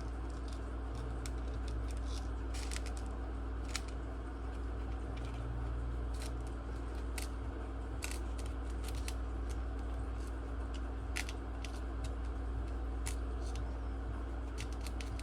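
Tiny metal laptop screws clicking as they are picked through and handled: light, irregular clicks scattered throughout, over a steady low hum.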